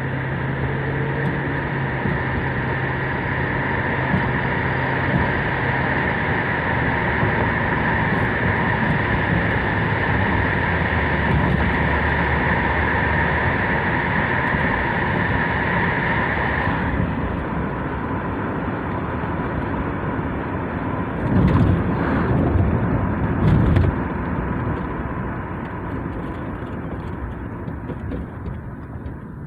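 2008 Ford Crown Victoria running with a steady high whine over the engine hum; the whine drops away about halfway through. Two louder noisy swells follow, then the sound fades. This is the unidentified clicking-and-whirring noise the owner is trying to track down.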